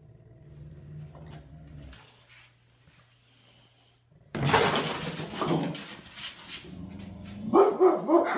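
A dog's low rumbling growl for the first couple of seconds, then from about halfway loud bursts of barking, turning to higher, bending yips near the end.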